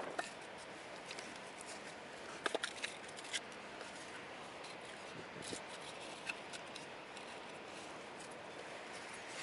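Split logs being set down and shifted on a flat stone slab: a few light wooden knocks and scrapes, over a steady hiss of wind.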